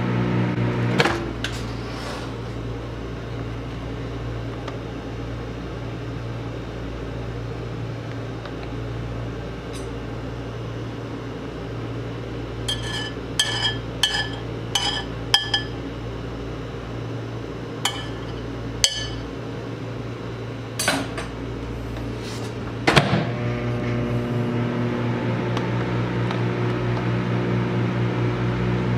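Microwave oven humming. The hum stops about a second in with a clunk. Later there is a run of short high electronic beeps from the control panel, two more beeps, and a couple of clunks. The oven then starts humming again a few seconds before the end.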